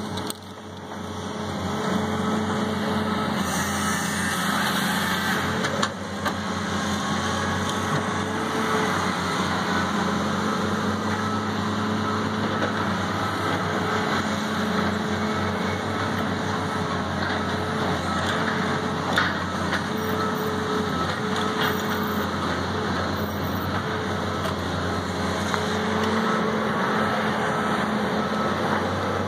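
Diesel engines of logging machines, a skidder and a knuckleboom loader delimbing pine stems, running steadily, with a few faint knocks.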